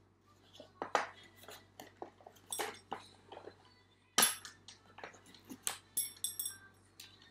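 Packaging of a Samyang Buldak spicy cup noodle being handled: the paper lid peeled back and the plastic seasoning sachets pulled out, giving a series of sharp crinkles and clicks. The loudest comes about four seconds in, and a quick run of crinkles follows around six seconds.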